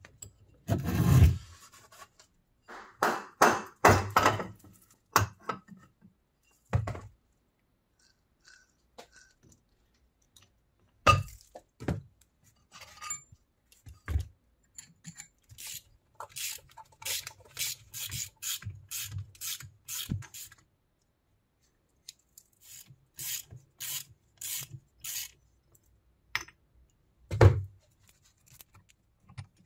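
Old electric motor of an NS-SH drill press being taken apart with hand tools: scattered knocks, scrapes and metal clinks as the end caps are worked off the finned housing and a puller is fitted to the rotor shaft's bearing. Quick runs of light clicks come in the middle, and one heavier knock near the end.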